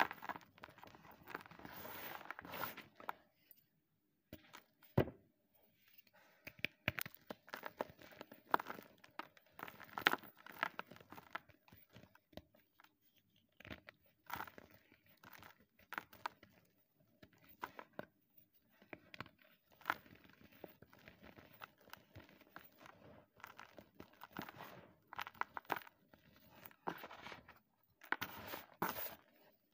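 Blocks of gym chalk crushed and crumbled by hand into loose chalk powder: irregular dry crunches and soft powdery crumbling, with a short pause about four seconds in.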